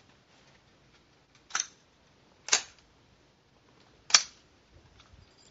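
Three rifle shots from the firing line, sharp cracks about a second, then a second and a half apart, the last two the loudest.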